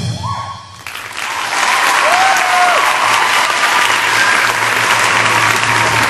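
Hand drums stop right at the start, and about a second later an audience breaks into applause that holds steady.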